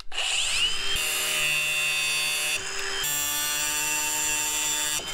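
Ryobi angle grinder spinning up with a rising whine, then running steadily as its disc cuts through a metal brake line.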